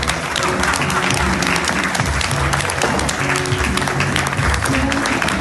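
Audience applauding at a curtain call over recorded music with a stepping bass line.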